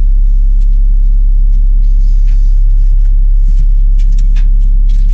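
Cat 272D skid steer's diesel engine running at a steady speed, a loud, even low drone.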